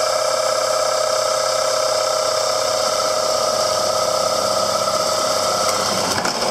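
Power drill turning slowly through thin plastic, the bit melting more than cutting its way in, making a steady high-pitched screech with several overtones, a fingernails-on-a-chalkboard noise. The sound shifts near the end as the hole is finished.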